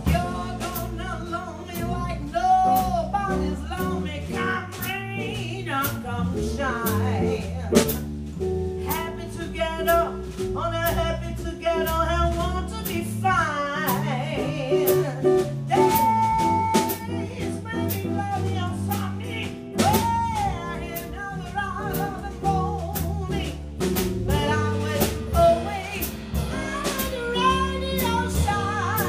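Small jazz combo playing live: a woman singing over archtop electric guitar, upright double bass and a drum kit with steady drum and rimshot strokes.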